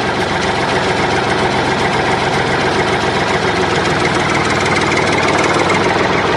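Small DC motor of a homemade toy tractor running steadily: a continuous whir with a fine rapid rattle as it drives the tractor along.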